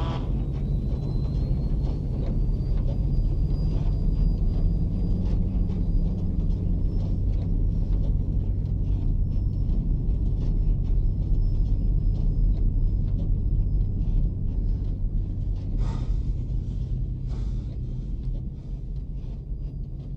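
Steady low rumble of a B-52 bomber's eight jet engines, heard inside the cockpit, with a faint high whine that climbs slightly over the first few seconds and then holds. Two brief knocks come near the end.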